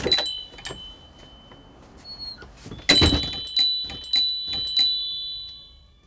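AP-012B metal pipe door chime ringing as the door moves: a thump at the start sets the pipes chiming, then several louder strikes about three seconds in. The clear, high tones fade away.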